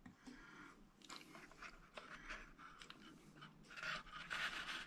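Faint scraping and rustling of handling, growing louder about four seconds in as a hand grips a small wooden hatch cover on a model ship's deck to open it.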